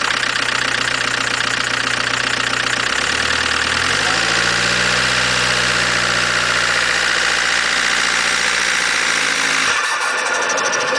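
Dacia Logan 1.5 dCi four-cylinder turbodiesel held at raised revs with a strong hiss; the revs climb about four seconds in and stay up. Near the end the engine note drops away suddenly on throttle lift, and a rapid fluttering chatter follows: turbo flutter.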